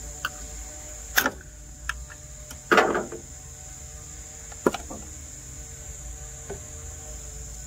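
Short metallic clicks and clanks as the wire bail clamp is snapped off a brake master cylinder's stamped-steel reservoir lid and the lid is lifted off, the loudest a brief rattle about three seconds in.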